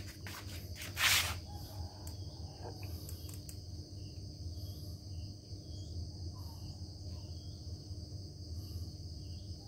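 Steady background ambience: a continuous high-pitched chirring over a low hum, with a brief rustle about a second in.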